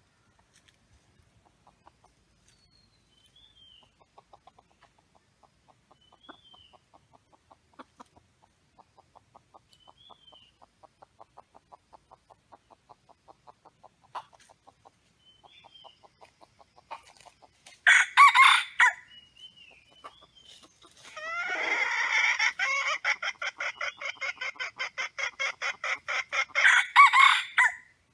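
Red junglefowl roosters calling: two short, loud crows about nine seconds apart, with a long run of rapid clucks between them and faint clucking earlier on.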